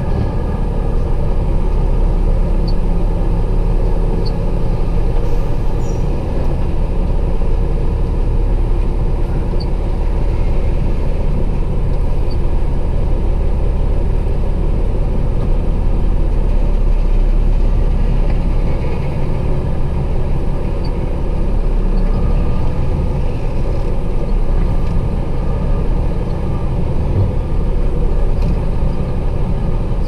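Truck engine running steadily, heard from inside the cab while the truck maneuvers slowly.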